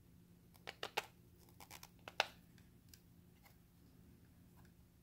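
Light clicks and taps from hands fitting a cable onto a terminal of a spot welder kit's plastic enclosure: a quick run of three clicks about a second in, a few soft ticks, then a sharper click just after two seconds.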